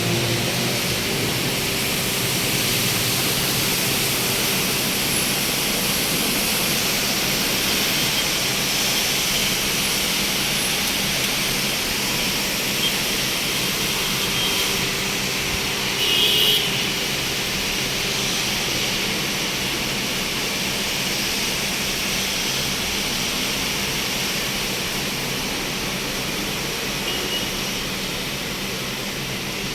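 Heavy rain falling steadily, an even hiss, with one brief higher-pitched sound about halfway through.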